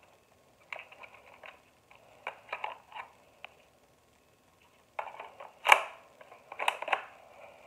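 Double Eagle P169 spring airsoft pistol being handled and its slide worked: light plastic clicks and rattles, then two louder sharp snaps about a second apart near the end.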